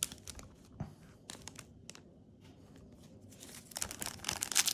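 A few light clicks and taps of trading cards being handled, then, from about three and a half seconds in, the crinkling of a foil Yu-Gi-Oh booster pack wrapper, growing louder.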